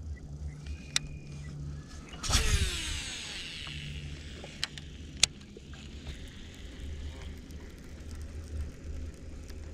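Baitcasting reel spool whirring as a cast pays out line, starting suddenly about two seconds in and falling in pitch over about a second as the spool slows. A sharp click follows a few seconds later, over a low rumble.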